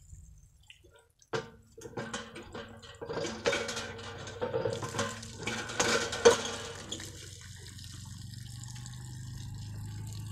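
Hand pump working as a buffalo drinks at its spout: water splashing and gushing, with knocks from the pump handle. The knocks come unevenly for several seconds and are loudest near the middle. After that they give way to a steady low hum.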